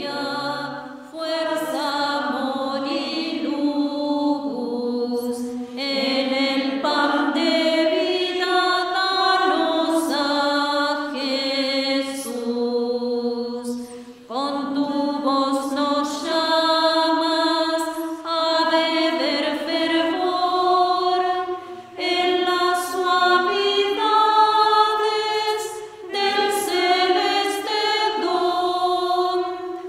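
A choir singing a Spanish hymn to the Virgin Mary, phrase after phrase, with brief dips between the lines.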